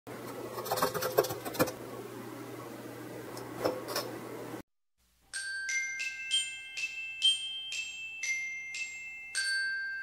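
A few clicks and knocks over a steady low room hum, then, after a brief silence near the middle, an intro jingle of about ten struck bell-like notes played on glockenspiel-type mallet percussion, each note ringing on into the next.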